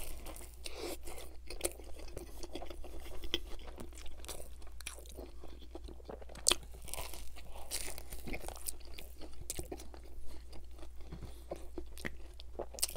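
Close-miked biting and chewing of a pizza sandwich filled with chicken bites and Caesar salad, crunching throughout, with a sharper crunch of a fresh bite about six and a half seconds in.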